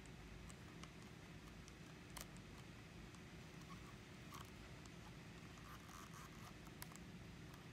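Near silence with a few faint, sharp clicks from the Sony NEX-3's rear control wheel and buttons being pressed and turned.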